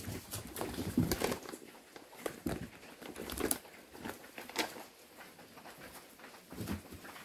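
Irregular rustling, scratching and light knocks as kittens scramble and climb over wood and a fabric bag, with a few sharper knocks among them.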